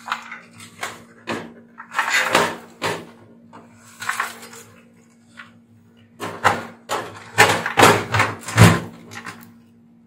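Irregular knocks, clunks and rattles of the opened oil fan heater's plastic and sheet-metal casing being handled, busiest and loudest in a cluster near the end.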